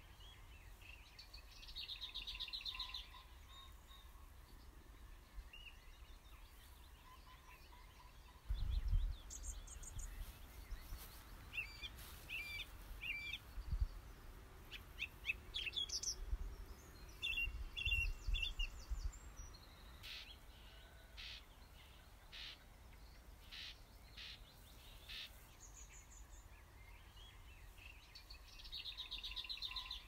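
Songbirds singing short phrases with pauses between them, one of the high trilling phrases heard near the start and again near the end, over a faint steady outdoor hiss. From about nine to nineteen seconds in, low rumbling gusts come and go beneath the song.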